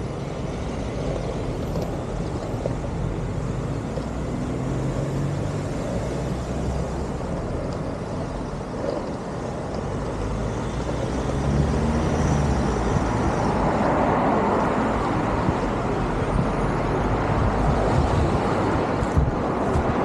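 Road traffic on a street alongside: car engines and tyres running steadily, louder from about halfway through, with a few short knocks near the end.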